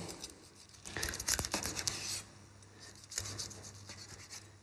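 Kitchen knife sawing through a cooked stuffed chicken breast on a wooden cutting board: rasping strokes in two spells, about a second in and again after three seconds.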